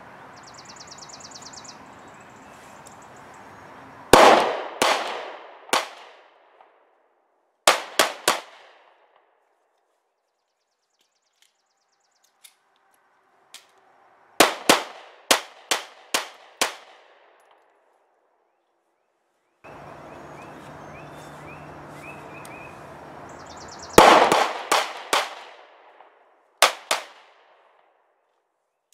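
Smith & Wesson Shield 9mm pistol fired in quick strings of two to six shots, about half a second apart, each shot with a short echoing tail; about nineteen shots in five strings.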